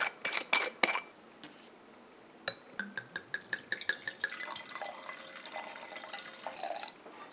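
Screw cap of a wine bottle twisted open with a few sharp clicks, then wine poured from the bottle into a large wine glass: a quick run of glugs, then a steady splashing pour into the glass that stops near the end.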